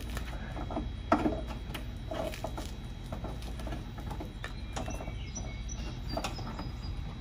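Plastic rear bumper cover of a BMW X4 being pulled off by hand at the wheel arch: a run of small clicks and creaks from the cover and its retaining clips, with one sharp snap about a second in as a clip pops loose.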